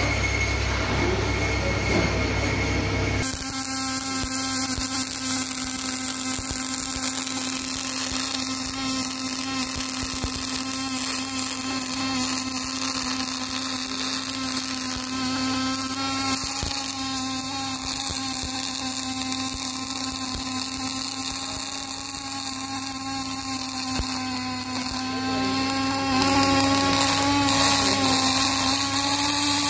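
MIG welding on steel plate: a steady crackling arc hiss with a whining tone in it, which starts abruptly about three seconds in and shifts slightly in pitch near the end.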